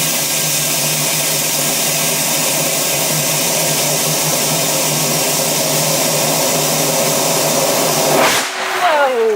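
Compressed air blasting out of a pumpkin-chunkin air cannon fired dry, a loud steady rush that cuts off suddenly about eight seconds in.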